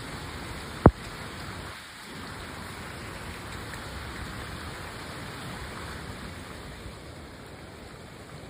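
Heavy rain falling steadily, with one sharp, very short knock about a second in.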